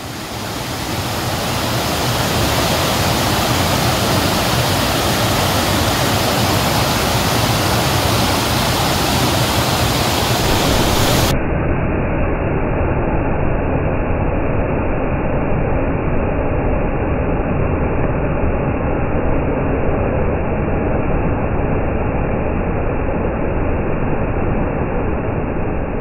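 Waterfall pouring over rocks: a loud, steady rush of falling water. About eleven seconds in the sound turns suddenly duller, losing its high hiss.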